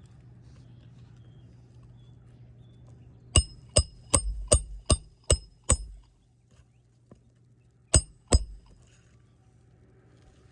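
Hammer driving roofing nails through an asphalt shingle: seven quick ringing metal strikes, then two more a couple of seconds later.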